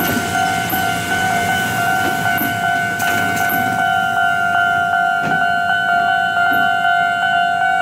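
Ohmi Railway 100-series electric train rolling slowly past, with a steady high-pitched whine and a few faint clicks of the wheels over the rail joints in the second half.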